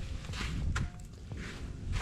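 Boots crunching through deep fresh snow in a walking rhythm, about two steps a second.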